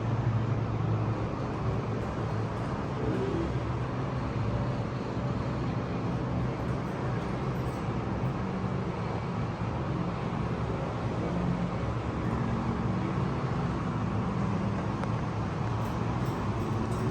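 Steady low rumble with a hum, even throughout, with no clear bird calls standing out.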